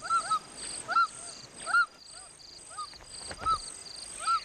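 A bird calling over and over in short arched notes, about two a second, with a steady insect trill behind.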